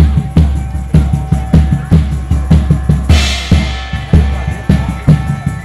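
Live band music: drums beating a steady pattern with a deep bass drum about twice a second, over held tones, with a cymbal crash about three seconds in.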